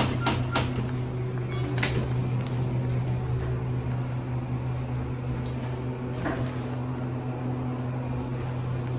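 Steady low hum inside a 2006 ThyssenKrupp Impulse traction elevator car, with several sharp clicks in the first two seconds and one more about six seconds in.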